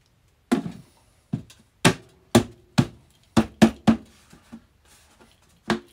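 Plastic lid being pressed and knocked down onto an orange plastic bucket, sealing it: about ten sharp snaps and knocks, irregularly spaced.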